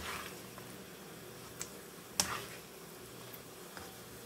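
A cooking spoon knocking against a wok a few times, the loudest about two seconds in, as vegetables are scooped out of simmering broth. A faint steady hiss of the broth lies underneath.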